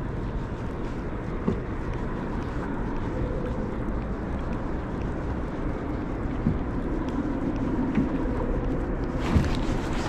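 Steady low outdoor rumble, with a faint steady hum joining about three seconds in and a few light knocks.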